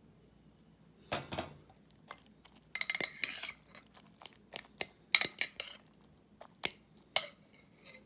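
A metal utensil clinking and scraping against a dish of scrambled eggs: a dozen or so sharp clinks and short clatters, irregularly spaced.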